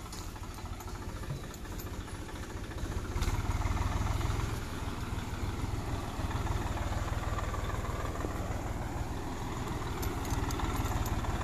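Swaraj 960 FE tractor's diesel engine running steadily under load as it pulls a rotary tiller through the soil, with the tiller's churning mixed in. The engine swells a little louder about three seconds in.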